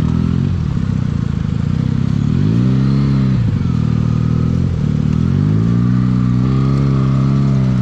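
Motorcycle engines revving as the group rolls at low speed. The pitch climbs and drops back about a third of the way in, then climbs again and holds. The loud Benelli exhaust is strong enough to drown out speech.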